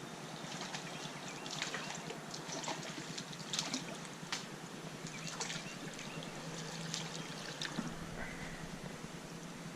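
Creek water trickling and flowing steadily, with scattered light clicks and ticks throughout and a brief high tone about eight seconds in.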